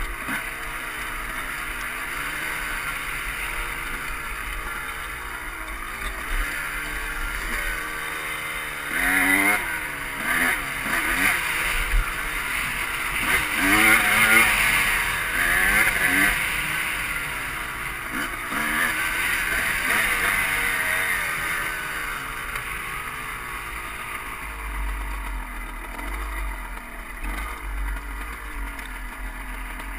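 Honda CR250 two-stroke dirt bike engine under way on a rough descent, its revs rising and falling again and again as the throttle is blipped, busiest in the middle stretch.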